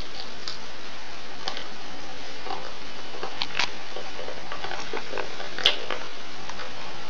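Hands opening an iPod Touch's clear plastic retail case: scattered light taps, scrapes and clicks of plastic over a steady hiss, with one sharper click about five and a half seconds in.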